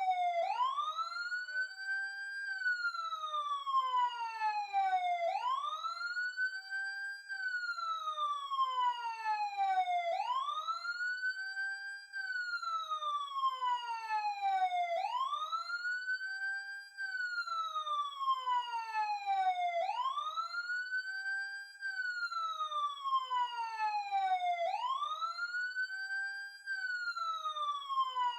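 Police siren sounding a slow wail: the pitch rises for about two seconds, holds briefly at the top, then falls steadily for about two and a half seconds, the cycle repeating roughly every five seconds, about six times.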